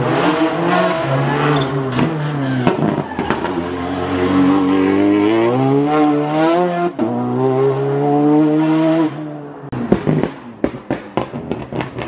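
Rally car engine at full throttle, revving up through the gears with quick drops in pitch at each gear change. Near the end, a run of sharp exhaust pops and cracks.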